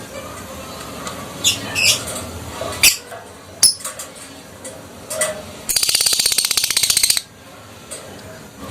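Lovebird calling: a few sharp, high chirps, then about a second and a half of very rapid chattering trill, the 'ngekek' call.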